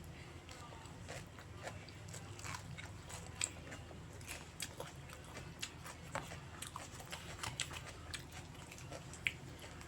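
Close-miked chewing and biting of stir-fried noodles with beef: irregular wet mouth clicks and smacks, two of them sharper and louder, over a steady low hum.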